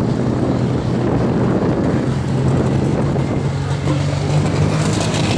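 A competition pulling tractor's engine running loud under heavy load, its pitch climbing slowly as the engine speed rises.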